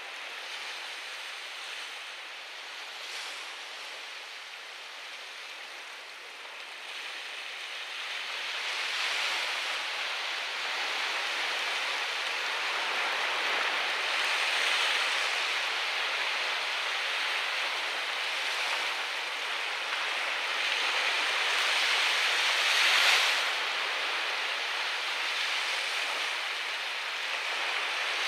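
Surf breaking on a sandy beach: a steady rushing wash of waves that swells and ebbs. It builds over the first ten seconds, and the loudest crash comes about three-quarters of the way through.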